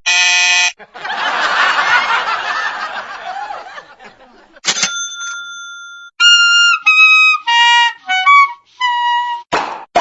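A string of short comedy sound effects: a brief buzzy tone, a noisy textured stretch, a click and a steady beep, then a falling run of short whistle-like notes.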